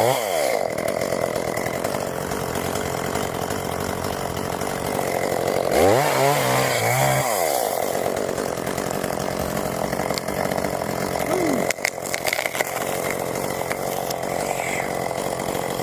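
Chainsaw running steadily, revved up and back down at the start and again about six seconds in, with a few sharp clicks about twelve seconds in.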